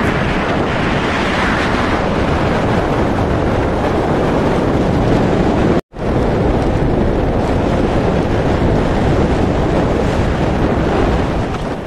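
Loud, steady wind buffeting the microphone of a moving vehicle, a rushing roar that covers any engine sound. The sound cuts out for a split second about six seconds in.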